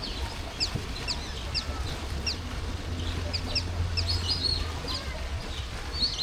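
Birds chirping: many short, high-pitched, downward-sweeping calls repeating throughout, over a low rumble.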